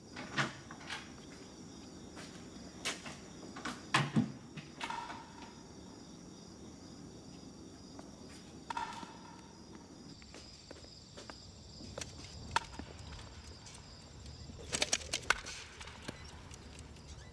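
Footsteps and a door knocking in a wooden corridor: a few scattered knocks over a quiet steady hiss. Near the end there is a quick cluster of mechanical clacks.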